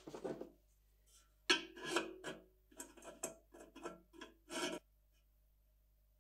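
Pliers scraping and rubbing against the sheet-metal rim of a train lantern's chimney in a series of short, uneven strokes as they are worked at a dent. The strokes stop about five seconds in.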